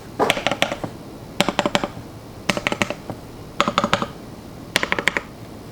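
Mechanical keyboard with lubed Akko Cream Yellow linear switches and GMK keycaps being typed on in five quick bursts, each a rapid run of several keystrokes, about a second apart.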